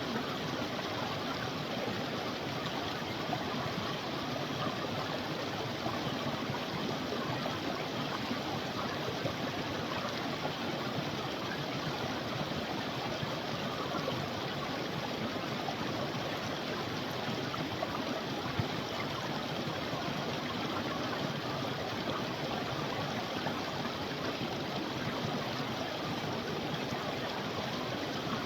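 Creek water flowing steadily over rocks, an even rushing babble.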